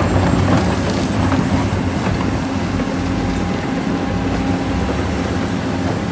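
Caterpillar 365C crawler excavator's diesel engine running steadily with a constant low hum while the machine digs.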